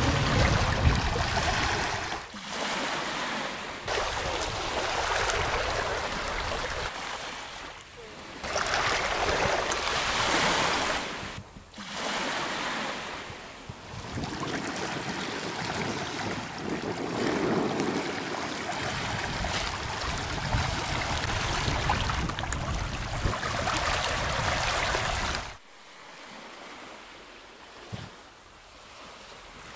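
Small waves lapping and washing in shallow sea water, with wind rumbling on the microphone at times. The sound shifts abruptly every few seconds and drops quieter for the last few seconds.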